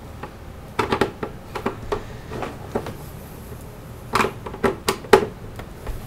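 Irregular sharp clicks from a captive screw on the back cover of a Lenovo ThinkCentre E73z all-in-one, being turned after it has come loose, with some of the clicking from the case easing away from the back panel. The loudest few clicks bunch together in the second half.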